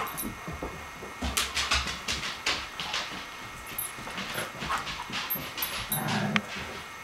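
Dogs at rough play: scattered scuffles and knocks, with dog whimpers and a short low vocal sound just after six seconds in.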